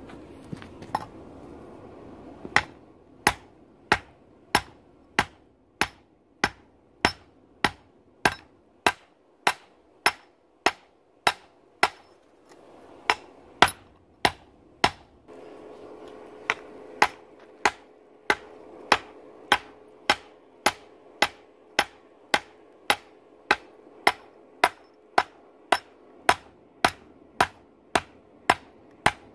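Hand hammer striking hot steel flat bar on a small steel anvil block set in a tree stump: sharp ringing metal-on-metal blows in a steady rhythm of about five blows every three seconds, with a short break near the middle.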